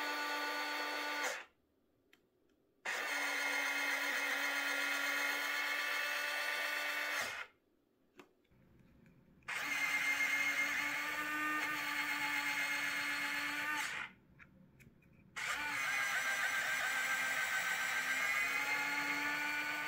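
JP Hobby electric retract actuator's small geared motor whining as it swings a 3D-printed A330 main landing gear bogie up and down. The first run stops about a second and a half in, and three more runs of four to five seconds each follow, with short silent pauses between them.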